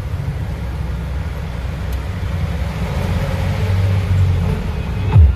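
Deep bass rumble from speakers driven by a Konzert AV-502 amplifier under final test, building slightly, with one sharp falling bass sweep near the end.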